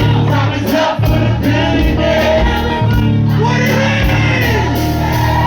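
Live hip-hop performance: several voices singing over a steady bass line and a drum beat with even hi-hat ticks.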